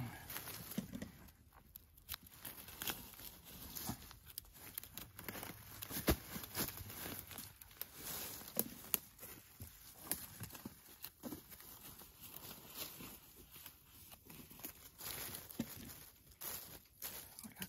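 Dry fallen leaves rustling and crackling as hands search and push through the leaf litter, with irregular small snaps and a couple of sharper cracks about six and nine seconds in.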